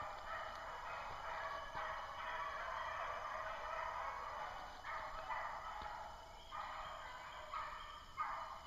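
Pack of beagles baying in chorus while running a rabbit on its scent trail, many voices overlapping almost without a break, with a few brief lulls.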